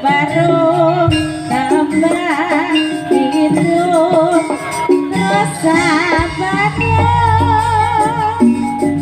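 Live Javanese jaranan music in dangdut-style arrangement: a singing voice with wavering vibrato over a full band with a steady bass line and percussion.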